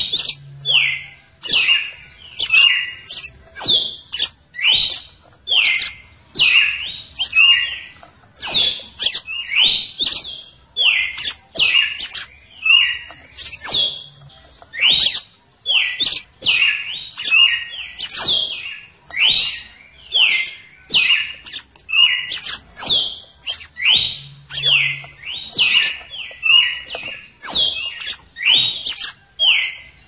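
Red-cowled cardinal (galo-de-campina) singing: a continuous run of short, clear whistled notes, each sliding in pitch, about two or three a second.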